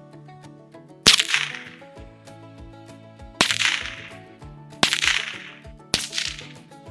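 Four sharp cracks from a spring-piston .22 air rifle firing 3D-printed plastic pellets, each trailing off over about half a second, about a second in, then near the middle, then twice more close together. Background music with a steady beat plays underneath.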